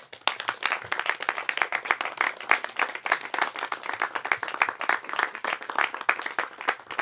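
People applauding: a dense, steady patter of hand claps.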